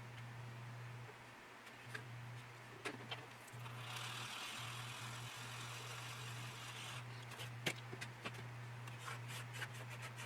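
Faint handling of small plastic model parts: scattered light clicks and taps, with a soft rubbing hiss for about three seconds in the middle. A steady low hum runs underneath.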